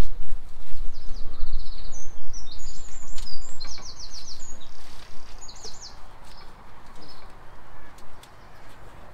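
Songbirds singing quick, high trilled phrases, strongest in the first half and fading after about six seconds. A low rumble, the loudest sound in the first few seconds, dies away after about four seconds, with a few faint clicks.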